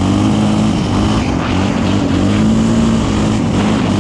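Single-cylinder four-stroke off-road engine (quad or dirt bike) running steadily under way, its pitch easing up and down a little.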